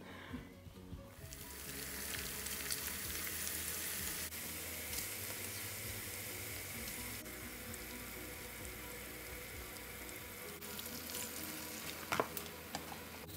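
Ground meat sizzling steadily in a frying pan, starting about a second in, with a wooden spoon clicking and scraping against the pan near the end.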